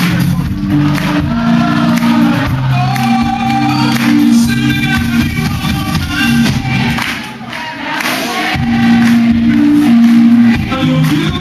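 Live band playing an up-tempo pop/R&B song with a male lead singer singing into a handheld microphone, recorded from the audience.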